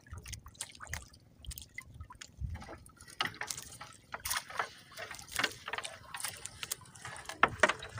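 Seawater splashing and dripping in irregular bursts as a fishing net is hauled out of the sea into a small boat.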